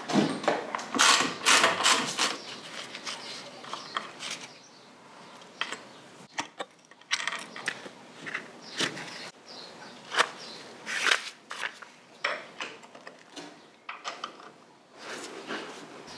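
Hand tools and metal motorcycle parts clinking and clattering irregularly while a Harley Sportster is being dismantled, with bursts of rattling about a second in, around two thirds of the way through and near the end.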